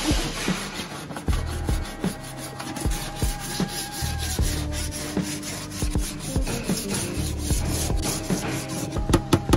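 Hand body file scraping in repeated push strokes across a car's straightened sheet-metal wing, rasping off paint and filler so the remaining high and low spots show up.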